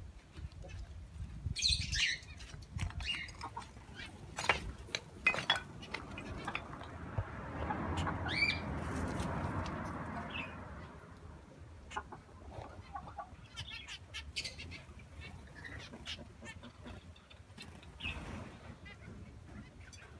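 Scattered short, high bird chirps from poultry and small aviary birds, with a few sharp knocks a third of the way in and a louder rustle lasting a few seconds near the middle.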